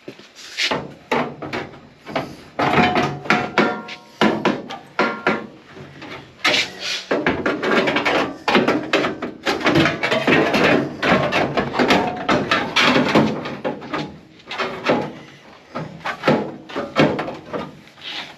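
Sheet-metal patch panel being handled and knocked into place against a car's wheelhouse: a dense, irregular run of clanks and knocks, some with a brief metallic ring.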